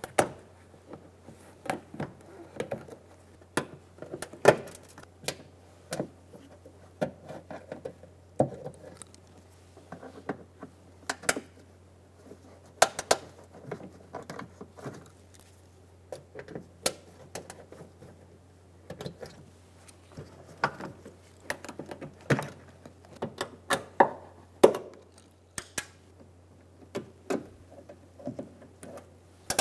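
Plastic push-pin clips being pried out of a Toyota Camry's trunk lid liner with a trim tool: a string of sharp clicks and snaps at irregular intervals, about one a second, over a low steady hum.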